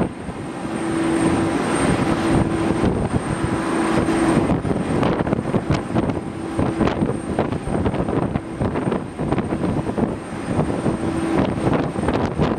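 Boeing 737-800's CFM56 jet engines on final approach, a steady rushing jet noise with a low hum that comes and goes.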